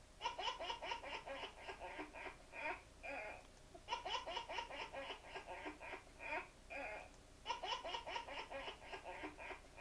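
A baby laughing hysterically in three bouts of rapid, breathy belly-laugh pulses, with short pauses between them. The sound is the video's audio played back through a computer's speakers.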